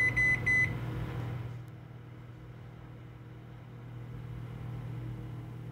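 Emerson microwave oven's keypad beeping a few times in quick succession during the first second as its buttons are pressed, then the oven running with a steady low hum.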